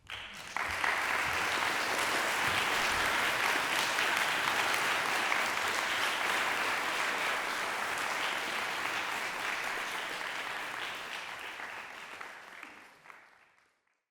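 Audience applauding, starting suddenly and fading away over the last few seconds.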